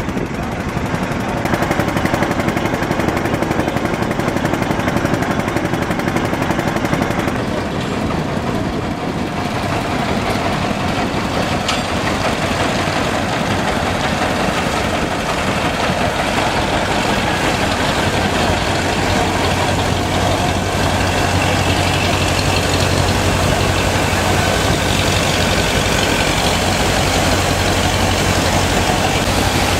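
Boat engine running steadily, with a steady low hum that comes in about two-thirds of the way through.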